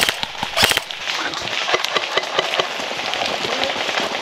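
Airsoft guns firing: two sharp shots near the start, then scattered fainter cracks and clicks.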